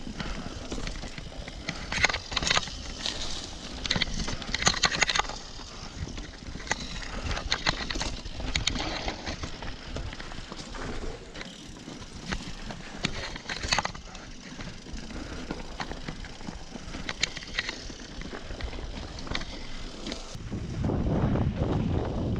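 Mountain bike riding down a dirt forest trail: tyres rolling over dirt and leaves, with frequent sharp clicks and rattles from the bike over bumps, and a louder low rush near the end.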